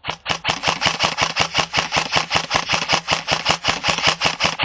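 Airsoft electric gun (AEG) firing a long full-auto burst, about eight shots a second, with the gearbox motor humming steadily under the clicks. The burst starts abruptly.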